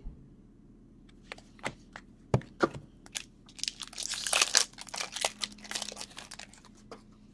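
A few light clicks as trading cards are handled, then a trading-card pack wrapper being torn open and crinkled for about three seconds.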